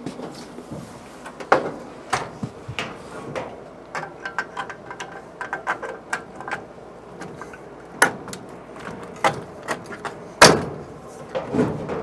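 Clothes dryer's sheet-metal cabinet panels being handled and fitted back together: a run of clicks, knocks and rattles, with one loud knock near the end.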